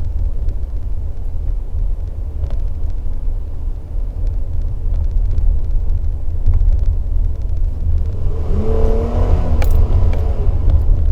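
Toyota Tacoma pickup under way, a steady low rumble of engine and road noise inside the cab. About eight seconds in the engine note climbs in pitch as the throttle is opened, then holds, with a sharp click near the end.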